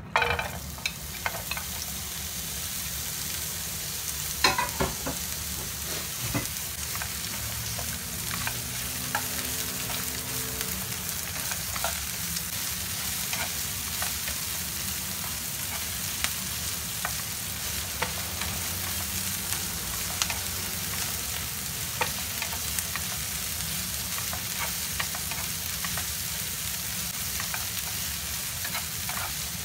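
Sliced onion and chopped aromatics tipped into hot oil in a non-stick frying pan, giving a loud sizzle at the start, then frying with a steady hiss. A slotted spatula stirs them, with scattered clicks and scrapes against the pan.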